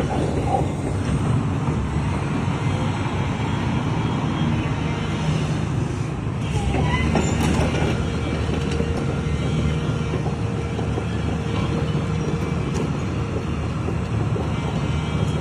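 Heavy vehicle on the move: a steady low engine and road rumble with occasional light rattles.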